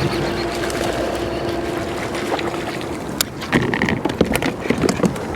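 A fishing reel being cranked to bring in a hooked fish, a steady hum over wind and water noise, then sharp clicks and knocks on the kayak from about three seconds in as the fish is brought to the boat.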